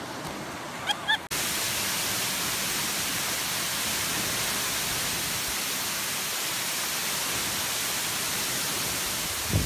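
Waterfall pouring into a pool, a steady, even rushing hiss that cuts in suddenly about a second in.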